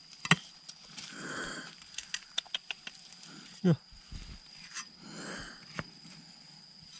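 A turtle hissing in breathy puffs a couple of times as it is handled, with sharp clicks and knocks from the handling in between.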